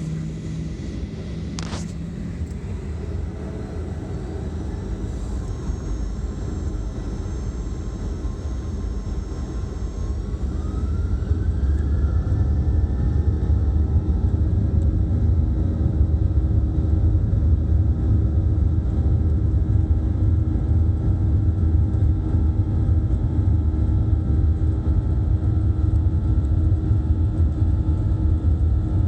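Inside the cabin of a Boeing 737-800, its CFM56-7B turbofans spool up for takeoff: a whine rises in pitch about ten seconds in and the sound grows louder. The engines then run loud and steady at takeoff power over a low rumble. A single sharp click comes about two seconds in.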